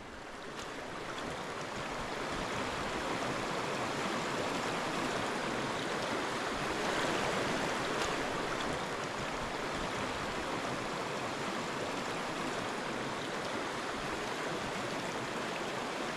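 Small brook trout stream running over a shallow rocky riffle: a steady rush of flowing water that fades in over the first couple of seconds.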